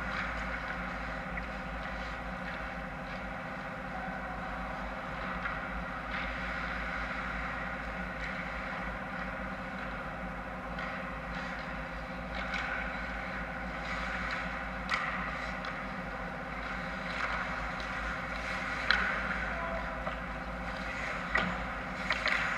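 Steady mechanical hum filling an indoor ice rink, with faint scrapes and clacks of skates, sticks and puck from hockey play up the ice, and a few sharper knocks in the last third.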